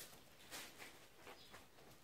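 Faint, brief rustles and scratches, a few of them spread through the moment: a kitten's paws moving on a cardboard box scattered with dry grass stems.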